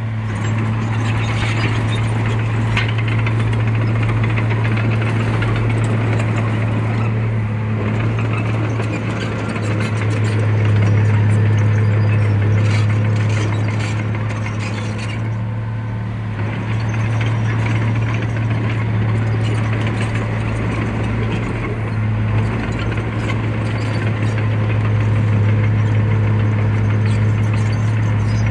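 Heavy construction machine's diesel engine running steadily with a constant low hum, with clattering and clicking from the machine working over it.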